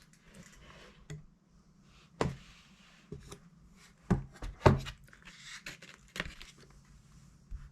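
Handling noise from opening a folio keyboard case: a few sharp knocks and taps, loudest about two seconds in and around four to five seconds in, with light rustling between them.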